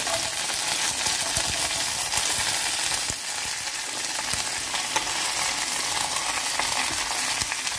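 Hot oil in a non-stick pan sizzling steadily as chopped okra is tipped in on top of popped mustard seeds and curry leaves, with a few faint scattered crackles.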